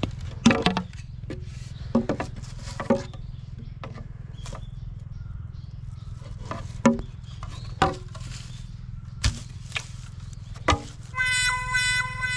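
Sharp knocks and clacks at irregular intervals over a steady low hum, then near the end a held, pitched sound lasting about a second.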